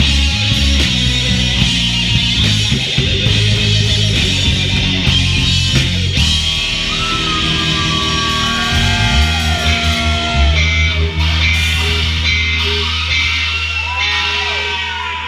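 A live rock band playing loud and heavy with drums, bass and distorted guitar. About six seconds in the playing gives way to one long held low chord with high sliding notes over it, ringing out at the close of a song.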